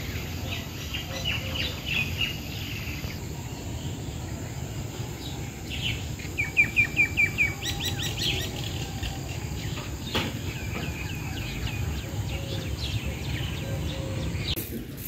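Several small birds chirping and calling. A little past the middle comes a quick run of about six loud, clear chirps, all over a steady low background rumble.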